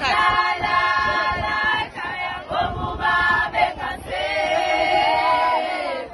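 A group of voices singing a traditional Zulu song in chorus, with long held notes, a brief break about two seconds in, and a shorter, choppier phrase before another long held note.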